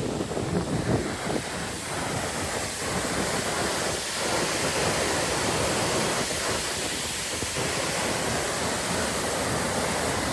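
Waterfall rushing: a steady, even noise of falling water that grows a little louder after about two seconds. Wind buffets the microphone in the first second or so.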